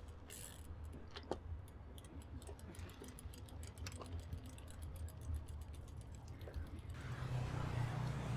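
Brompton folding bike's rear-hub freewheel ticking quickly and evenly while coasting, about eight clicks a second, over a low rumble. Near the end, a rushing noise rises.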